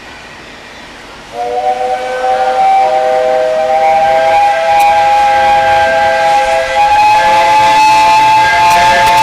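Steam locomotive's whistle sounding for departure: one long, loud blast, a three-note chord that starts about a second in and rises slightly in pitch, loud enough to distort the recording. The engine is the SL Hitoyoshi's Class 8620 locomotive.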